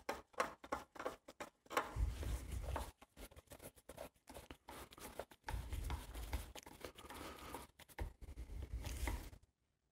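A long bolt being tightened by hand down through a plastic air filter cover on a Briggs and Stratton lawnmower engine: irregular small clicks and scraping of the tool and plastic, with a few dull low rumbles of handling.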